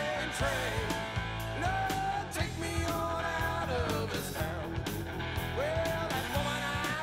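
Rock music: guitar over a steady drum beat.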